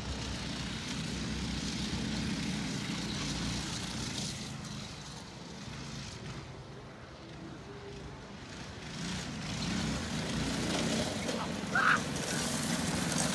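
Small minibike engines running, fading in the middle and getting louder again toward the end as two minibikes ride closer. A brief higher-pitched sound cuts in near the end.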